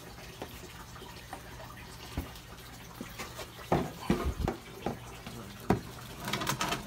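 Water sloshing in a plastic picnic cooler as it is grabbed and lifted, with a cluster of sharp knocks from the plastic being handled about halfway through, over a steady low hum.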